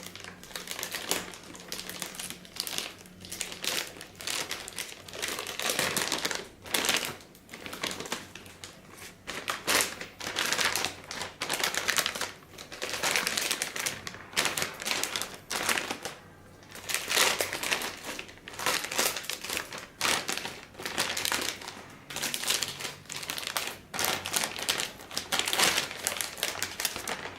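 Packaging being handled and unwrapped: crinkling and rustling in irregular bursts with short pauses between them.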